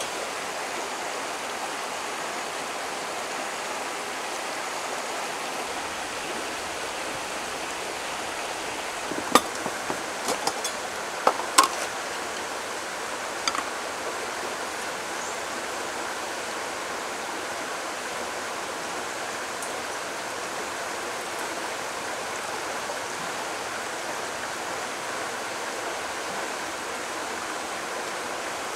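A stream flowing steadily, a constant rushing hiss. A handful of light clinks from coffee gear being handled, clustered about nine to twelve seconds in and once more shortly after.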